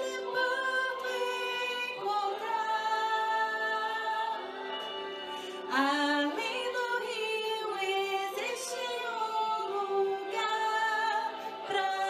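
A woman singing solo, a gospel praise song with long held notes that slide between pitches.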